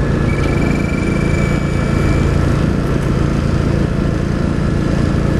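Small gasoline engine of a hydraulic rescue-tool power unit running steadily while hydraulic cutters close on a car door's keeper strap and wiring harness. A thin high whine lasts about two seconds near the start.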